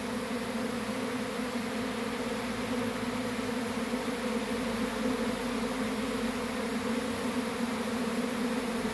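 A honeybee swarm buzzing: the steady, low-pitched hum of thousands of bees clustered on a branch, with many still flying around the cluster.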